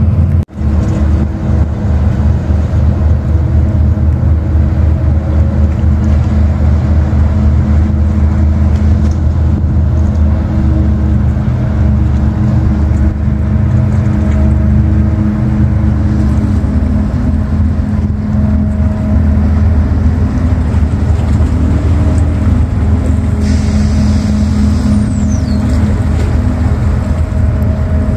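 Deep, steady hum of ships' diesel engines from a large container ship and its harbour tug passing close by, briefly cut off about half a second in.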